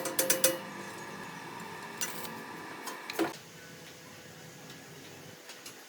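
Light clicks and metallic clinks, a quick cluster in the first half second and a few more around two and three seconds in, over a faint steady hum that drops away a little after three seconds.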